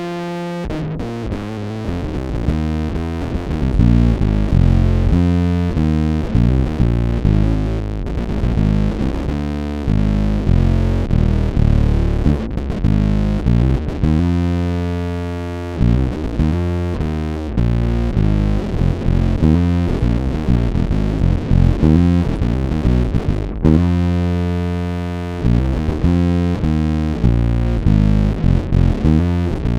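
Electric bass guitar played through a distortion effect: a heavy, low riff of changing notes, with a few notes held longer.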